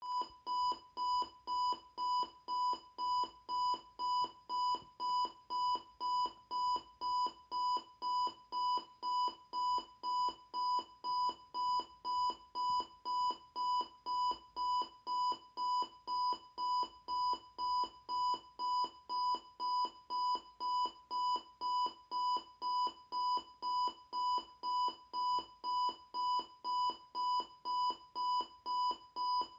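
Capello CR-22 clock radio's buzzer alarm going off: a steady run of short electronic beeps at one pitch, about one and a half a second, with no change in speed or loudness.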